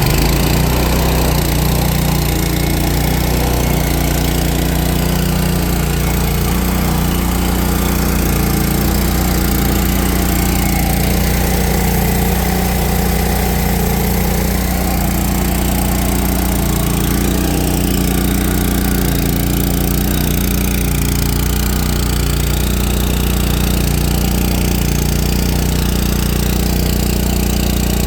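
Rowe air compressor running steadily, a constant mechanical hum with a strong low drone.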